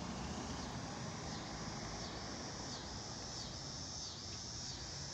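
A car driving past at the start, over repeated high chirps from insects in the background.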